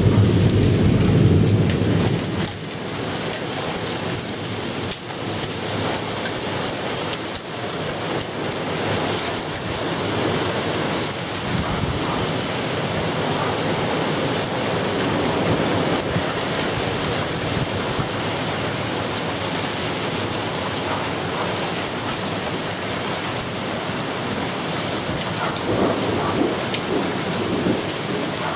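Steady rain hissing down during a thunderstorm. A low, rolling thunder rumble fades out in the first two seconds, and another builds near the end.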